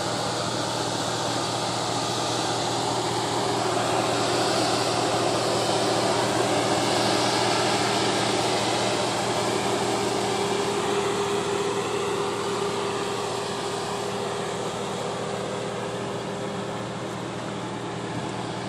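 A vehicle's engine running steadily with a fan-like hum: a continuous low drone with a few held tones. It swells slightly part way through and eases off near the end.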